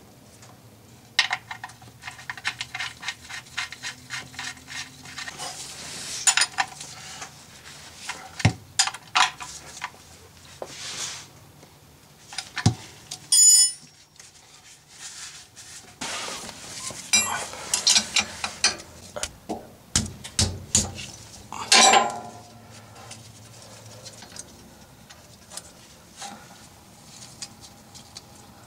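Scattered metal clinks, taps and knocks of tools and parts being handled, coming in bunches with gaps between, and a brief ringing clink about halfway through.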